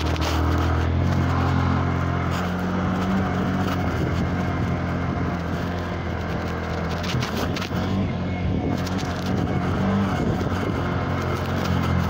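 Motorcycle engine running at a steady, low engine speed while riding a rough gravel track, with wind buffeting the microphone and stones crackling under the tyres.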